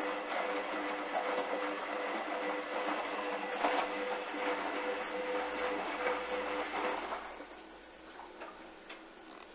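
Washing machine running with a steady motor hum and a rushing sound. The motor stops about seven seconds in, leaving a few faint clicks.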